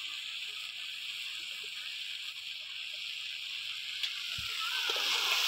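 Chorchori of fish head and vegetables simmering in an open steel wok: a steady bubbling, sizzling hiss that grows louder near the end, with a single low knock a little past four seconds in.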